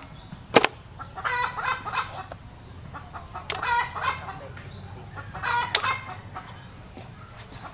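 Chicken clucking in three short bouts of rapid calls about two seconds apart, with a few sharp knocks, the loudest about half a second in.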